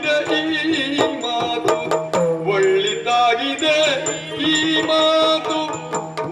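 Yakshagana music: a singer's voice in long, bending melodic lines, with frequent sharp drum strokes over a steady drone.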